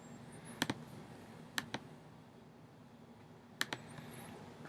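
A few short, sharp clicks over a faint steady low hum: a close pair about half a second in, a single click a second later, and another close pair near the end.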